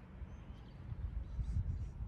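Low rumbling noise on the microphone of a handheld camera, swelling in the second half.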